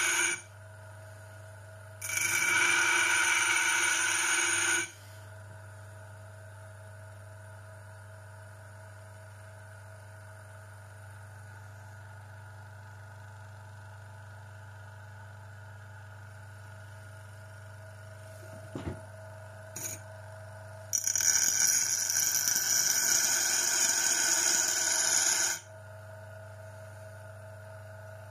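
Homemade bench grinder motor running with a steady hum, interrupted twice by several seconds of loud, ringing grinding as metal is held against the spinning wheel. There are two short clicks just before the second spell.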